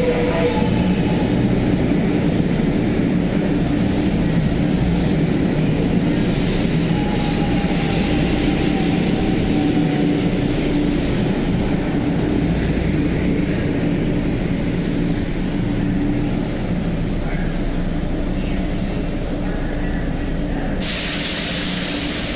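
A 500 series Shinkansen train running slowly into the platform. Its steady running noise carries a low electric hum and a faint falling motor whine as it slows. A sharp hiss comes in near the end.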